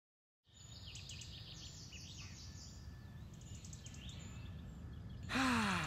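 Outdoor ambience with small birds chirping and twittering. Near the end comes a loud, short swoop that falls in pitch.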